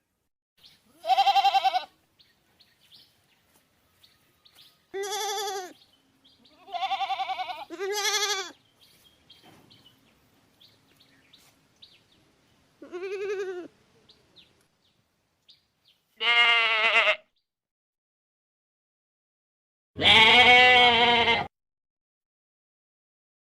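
Goat bleats: seven separate calls with a wavering pitch, spaced a few seconds apart. The last two are lower, harsher and among the loudest, and the final one is the longest.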